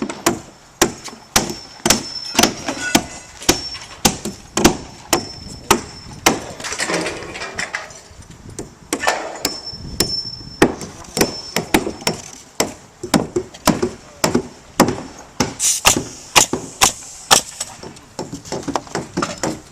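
Hammer blows driving nails into 2x4 lumber on a roof deck: a run of sharp, irregular strikes, about two or three a second.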